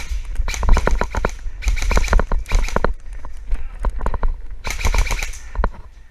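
Airsoft rifle firing four bursts, each a rapid string of clicks about ten a second with a hiss behind it, the longest about a second long.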